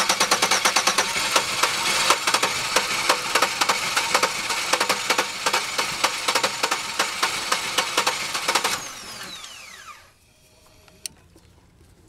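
A 2002 Chevy Venture's 3.4 L V6 cranking on its starter motor, a fast, even chugging that goes on for about nine seconds without the engine catching, then the starter's whine falls away as it stops; a single click comes near the end. It cranks but won't start because the injectors get no pulse, which the owner puts down to a failed cam sensor.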